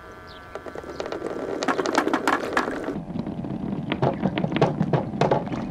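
Dozens of clear Dragon Ball marbles rolling down a perforated plywood chute, a dense clatter of clicks and knocks over a rolling rumble as they hit one another and drop over a step between sections. It builds up over the first second or so as the crowd of balls arrives.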